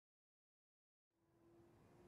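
Near silence: dead silence, then very faint outdoor ambience with a steady low hum fading in about a second in.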